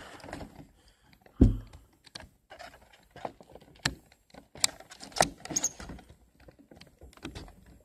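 Boxes and packaging being handled: scattered clicks, taps and light rattles, with one dull thump about a second and a half in.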